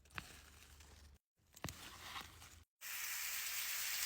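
Vegetables being picked by hand: two sharp snaps of stems breaking, each in its own short clip, then a steady loud hiss starting near the end.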